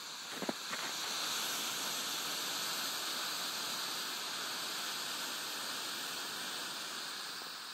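DM-11 smoke pot burning: a steady rushing hiss as smoke jets from its vent, swelling about a second in, with a couple of crackles near the start.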